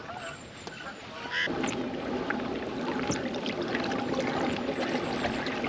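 Water noise from a pedal-drive fishing kayak under way. It starts about a second and a half in and runs steadily, with a few light clicks.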